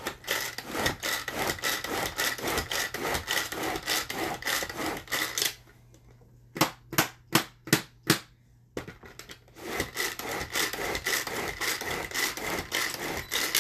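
Tupperware pull-cord chopper chopping parsley. Each pull gives a quick zipping whir of cord and spinning blades, repeated rapidly. The pulls pause briefly around the middle, a few separate pulls follow, then another fast run.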